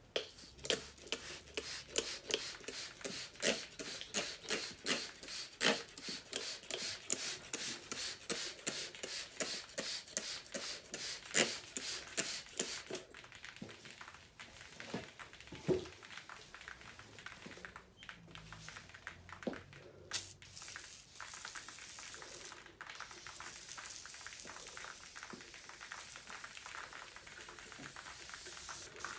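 Compressed-air engine cleaning gun spraying degreaser onto a bare engine block. For roughly the first half it comes as a fast run of short hissing spurts, about three a second. From about two-thirds of the way in it becomes a steady hiss of continuous spray.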